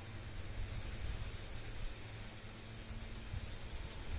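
Steady, low outdoor background noise: a low rumble, a thin steady high hum and a few faint short chirps.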